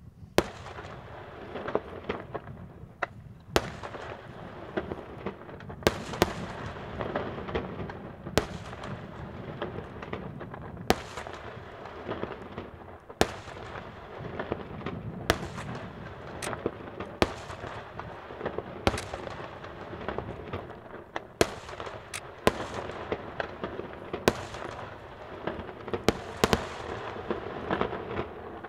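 Aerial fireworks shells bursting in a steady display: sharp bangs every second or two, some in quick pairs, over a constant din of further bursts.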